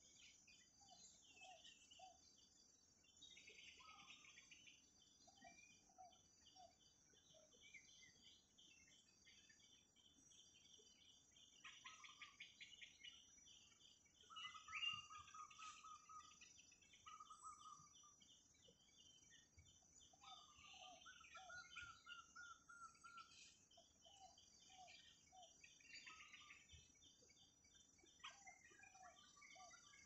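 Faint forest ambience: several birds calling and chirping, one repeating a short three-note call every few seconds, over a steady high insect drone. A louder bird call comes about halfway through.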